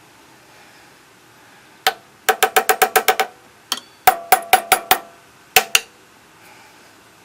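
A small resonant metal part tapped repeatedly: a single tap, a quick run of about nine taps, another single, a run of six, then two more, each with a short metallic ring.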